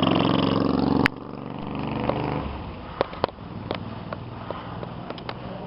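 Motorcycle engine running loudly, then cut off abruptly about a second in. After that there is a quieter low hum with scattered clicks and knocks.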